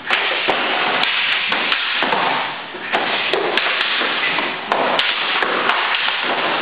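Eskrima sticks striking during full-contact sparring: about twenty sharp wooden cracks come in quick, irregular flurries over steady scuffling noise.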